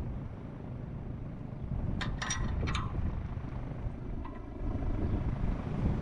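Wind rumbling on the microphone, with three sharp metallic clinks about two seconds in and a brief light rattle a little after four seconds, from a wrench being worked on a homemade bead breaker clamped to a tractor wheel rim.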